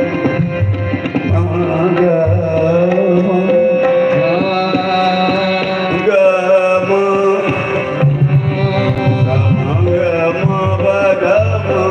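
Qawwali performed live: voices singing a melody that slides up and down over a held harmonium note, with tabla keeping a steady beat.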